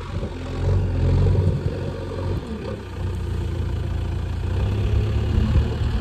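JCB 3DX backhoe loader's diesel engine running under the operator's control, its revs rising about a second in, easing off around three seconds and building again as the machine works.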